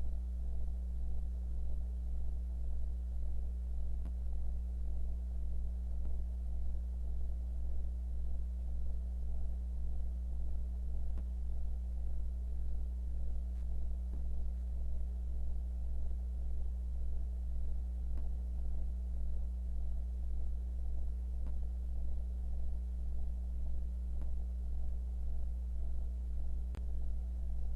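Steady low electrical hum with a slight regular pulsing in level, with no other sound over it.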